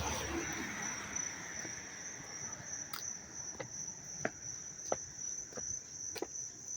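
A loud chorus of insects chirping, heard as one steady high-pitched trill. From about three seconds in, faint sharp clicks come roughly every two-thirds of a second.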